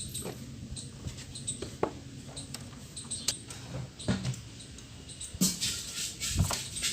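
Motorcycle exhaust fitted with a homemade plastic noisemaker: the engine runs steadily under a string of short squeaks that fall in pitch every second or so, with a louder hissing rush joining about five and a half seconds in.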